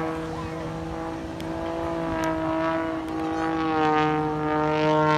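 Single-engine aerobatic propeller plane's engine and propeller droning steadily, the pitch dropping a little about three and a half seconds in.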